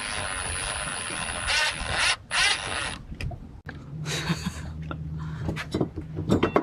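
Lewmar 44 sailboat winch, just serviced and installed, turned by hand, its drum and pawls ratcheting as it spins.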